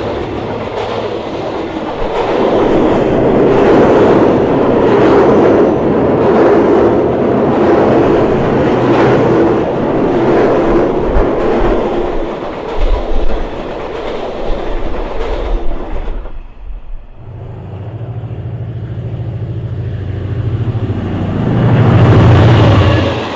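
A train passing close by, its wheels clicking over the rail joints in a steady rhythm. It clears and goes quiet about 16 seconds in. Then a low engine drone builds and is loudest near the end.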